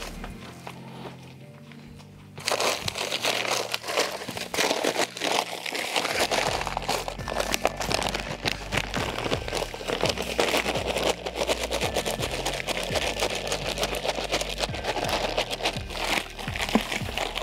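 Paper bag of dry mortar mix crinkling and rustling as it is handled and the powder is poured into a plastic bucket, starting about two seconds in. Background music plays throughout.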